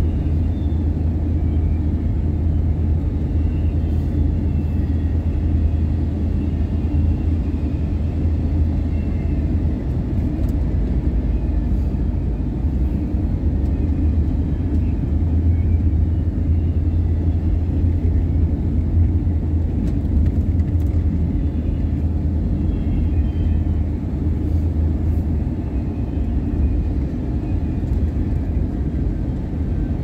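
Steady low rumble of a car driving along a road, without a break.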